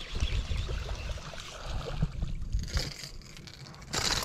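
Water splashing and sloshing beside a jon boat as a small bass is reeled to the boat on a topwater lure, with a short, louder splash near the end.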